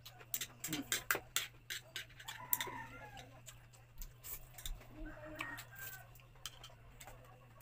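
Eating sounds: utensils clicking against ceramic bowls, many sharp clicks in the first two seconds and fewer after, with chewing of noodles. A steady low hum runs underneath, and two brief pitched sounds come about two and a half and five and a half seconds in.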